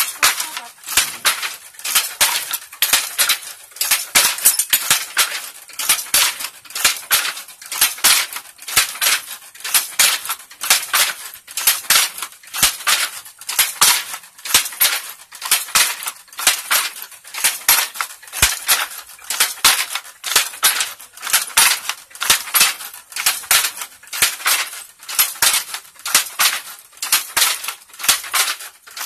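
Wooden hand loom weaving at a steady pace: the shuttle clacks across in its box and the batten beats each weft thread in. The result is a continuous, even rhythm of sharp wooden knocks.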